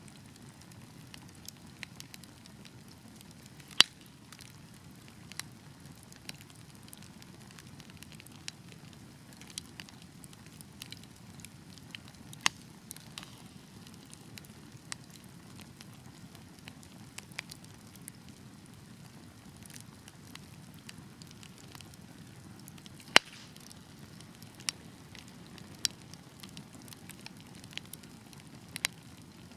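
Fire crackling in a fireplace: a steady low rush of flames with scattered sharp pops and ticks, two of them much louder, one about four seconds in and one about two-thirds of the way through.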